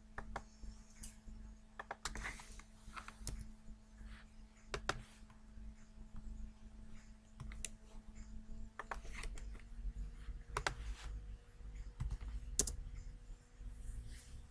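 Scattered clicks of a computer keyboard and mouse, a few at a time with pauses between, over a faint steady electrical hum.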